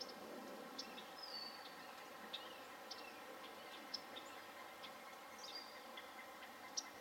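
Faint outdoor ambience with scattered short, high bird chirps. Two brief high whistles come about a second in and a little past the middle, and the sharpest chirp comes near the end.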